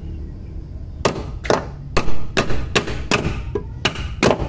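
A hammer striking the car's door check strap about nine times, roughly two blows a second, starting about a second in, knocking the check upward to free it from the door.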